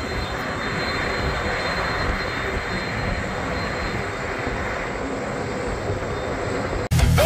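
Lockheed C-5M Super Galaxy's four General Electric turbofans running at taxi power as the jet rolls by: a steady jet rush with a faint high whine. Near the end it cuts off abruptly into loud rock music.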